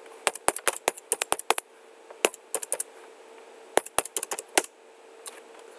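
Typing on a computer keyboard: short runs of quick key clicks with pauses between them, over a faint steady hum.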